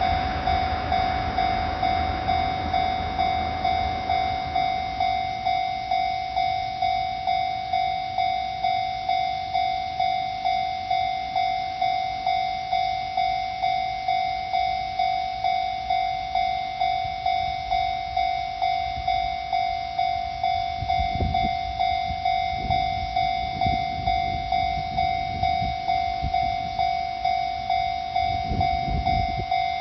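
Railway level crossing warning bell ringing steadily, about one and a half strokes a second. A passing train's rumble fades away over the first few seconds, and brief low rumbles come back near the end.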